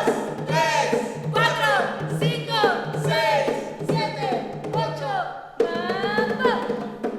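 Brass band playing a rhythmic tune: repeated falling pitch slides about twice a second over a pulsing low bass line.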